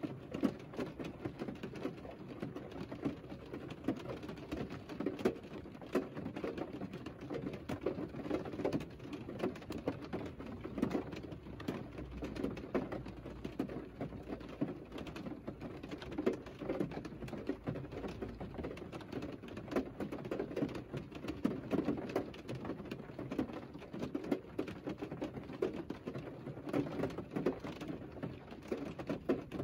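Rain falling on a parked Mercedes car, heard from inside the cabin: a dense, uneven patter of drops.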